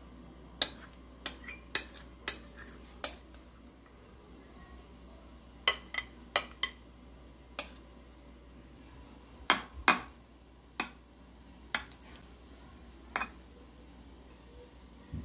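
Metal spoon clinking against a glass baking dish and bowl as a creamy salad is scooped in and spread: about fifteen sharp clinks in three bunches, with soft stirring between them.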